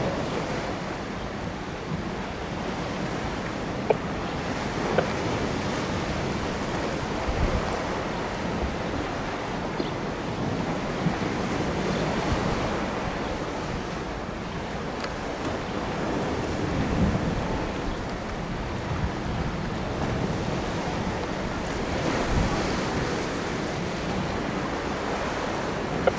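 Wind buffeting the microphone over choppy river water, with waves lapping and a few brief clicks.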